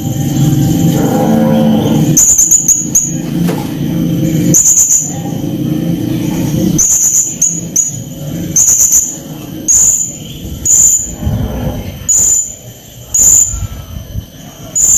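A blue-crowned hanging parrot (srindit) gives short, sharp, very high-pitched calls, singly or in quick pairs, about once a second. For the first half there is a loud, rough, low rumbling underneath, with a brief wavering pitched sound about a second in.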